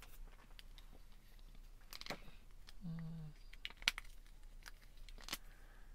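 Small clicks and light rustles of lightboard markers being handled, with a man's brief hum about three seconds in.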